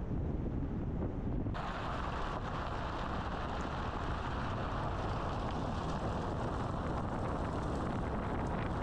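Steady noise of a car being driven: a low rumble of tyres and wind. A brighter hiss comes in suddenly about a second and a half in and then holds steady.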